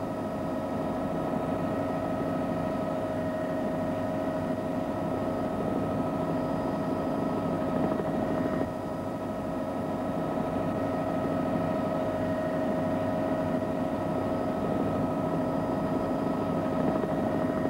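Steady engine drone: several held tones over a noisy rumble, with a slight drop in level about nine seconds in.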